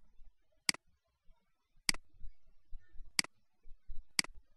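Computer mouse button clicking: a series of sharp, single clicks about one a second, as the mouse adjusts a setting on screen.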